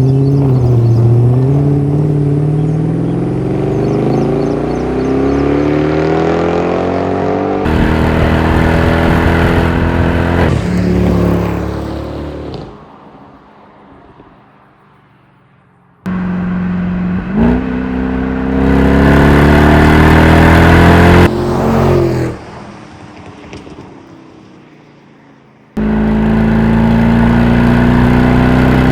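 Mercedes-Benz E63 AMG's naturally aspirated 6.2-litre M156 V8 exhaust, in several clips cut together. The engine note rises steadily as the car accelerates, dies away twice when it comes off throttle, and comes back loud each time.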